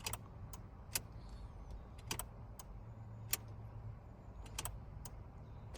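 About a dozen sharp, irregularly spaced clicks over a faint steady low hum.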